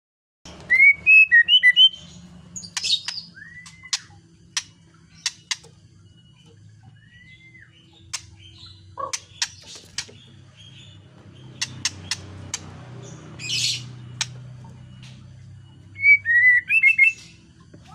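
A caged songbird calling: quick clusters of short rising whistled notes near the start and again near the end, a couple of harsh rasping calls, and scattered sharp clicks, over a low steady hum.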